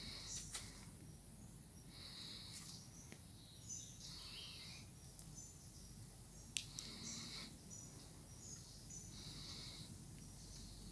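Faint outdoor ambience in a bamboo grove: birds giving short high chirps and insects calling in patches, over a steady low rumble. A single sharp click comes about two-thirds of the way through.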